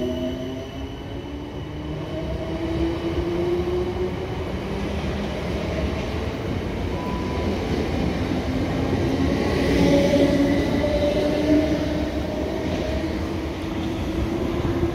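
South Western Railway Class 455 electric multiple unit pulling out of the platform. Its traction motors whine in a few tones that rise slowly in pitch as it gathers speed, over a steady rumble of wheels on the rails. The sound is loudest about ten seconds in, as the last carriages pass.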